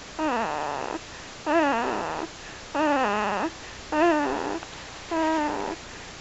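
Sleeping baby snoring with a wavering, whining voice on each breath, five times in a steady rhythm.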